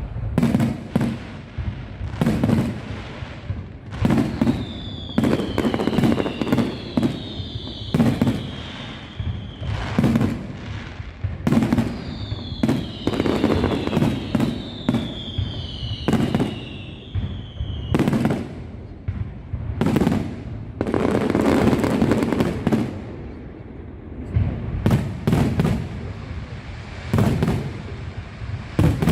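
Fireworks display: a dense series of sharp bangs from bursting shells, with several falling whistles overlapping in the middle stretch.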